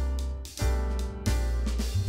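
Background music with drums and a strong bass line.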